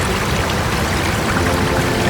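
Creek water running steadily over rocks in small cascades. Faint music tones come in under the water sound past the middle.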